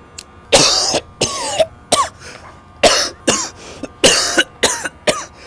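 A man's coughing fit on cigarette smoke: about eight loud coughs in quick succession, some with a strained voiced edge.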